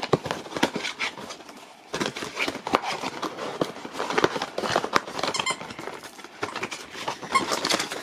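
A husky chewing a plush fox squeaky toy: the squeaker squeaks again and again, mixed with the clicks and rustle of chewing.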